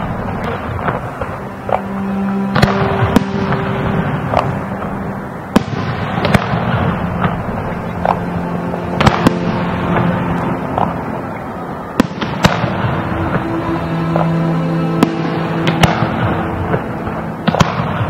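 Aerial firework shells bursting in a display: sharp bangs at uneven intervals of one to three seconds, with crackling between them, over music with long held notes.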